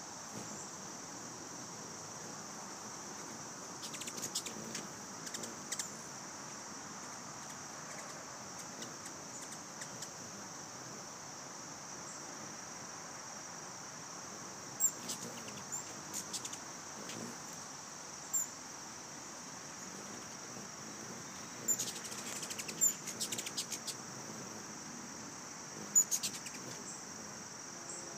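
Ruby-throated hummingbirds giving clusters of sharp, high chip calls in several bursts a few seconds apart, typical of their territorial squabbling at a feeder. Under the calls runs a steady high insect drone.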